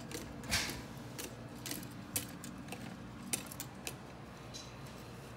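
Plastic K'nex rods and connectors clicking and clacking as they are handled, a scatter of light irregular clicks with the strongest about half a second in.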